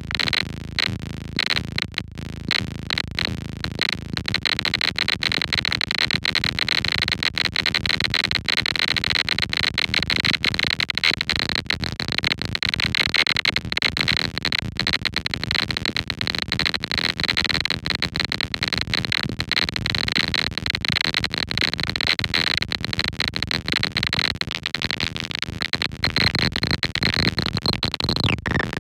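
Lorre-Mill Double Knot V2 synthesizer sounding a noisy, rapidly stuttering texture with a steady high tone held over it. Near the end the high tone cuts out and the pitch slides lower.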